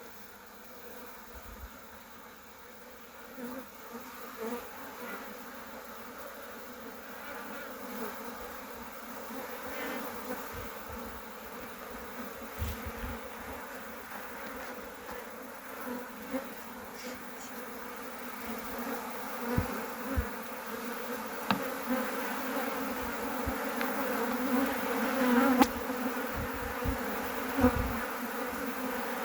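Honeybees buzzing in an opened, smoked hive, growing louder as the colony is disturbed during frame removal, with occasional knocks and clicks of frames and hive tools against the wooden box.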